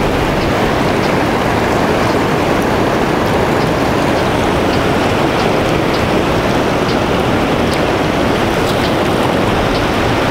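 Fast-flowing mountain river rushing over shallow riffles: a steady, loud wash of water.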